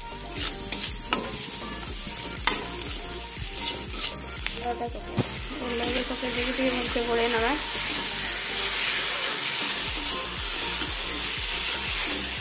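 Metal spatula stirring and scraping a mashed elephant-foot-yam and onion mixture in a hot kadai, with repeated sharp scrapes against the pan. Oil sizzles under the food, more steadily from about halfway on.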